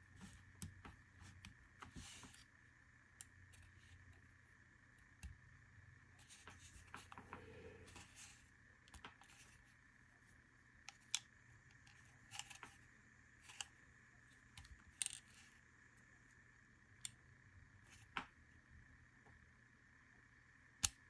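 Scattered small clicks and light scrapes of metal parts as the mainspring and hammer parts are fitted into a Springfield Armory Prodigy pistol frame by hand, the sharpest clicks in the second half, over a faint steady hum.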